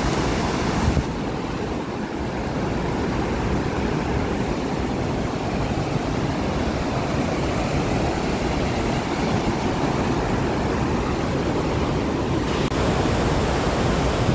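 Steady rushing of a waterfall's white water pouring down a rock wall, with wind buffeting the phone's microphone.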